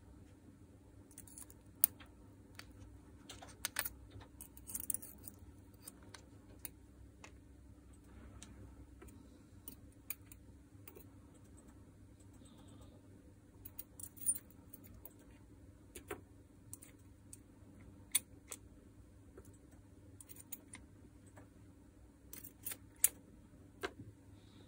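Small steel planetary gears and a metal pick and tweezers clicking and clinking as the gears are lifted out of a cordless drill's gearbox and set down: scattered single clicks with a few quick clusters, over a faint steady hum.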